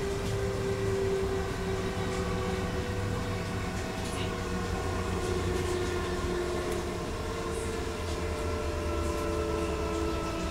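Class 422 electric multiple unit running, its Bombardier MITRAC IGBT traction inverter and motors giving several thin whining tones that slide slowly in pitch over a steady low rolling rumble.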